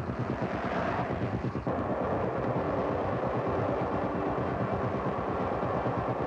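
Electronic music with a steady pulsing beat, joined about one and a half seconds in by a steady rushing noise.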